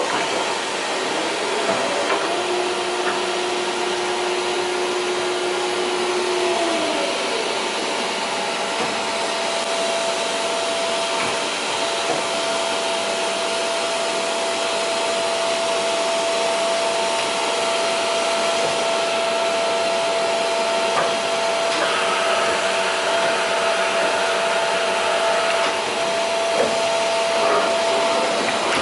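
Hyundai Supatec SPT-H 630S horizontal machining center running: a steady whirring hiss with a whine that glides up to a higher pitch about six and a half seconds in and holds there.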